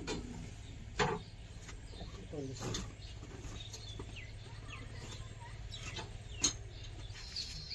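Brief, indistinct voices over a steady low hum, with a few sharp clicks later on.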